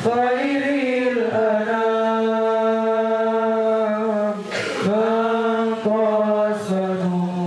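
Unaccompanied male voice singing an Arabic sholawat through a microphone in slow, melismatic chant, with long held notes that bend in pitch and a short breathy break about halfway through.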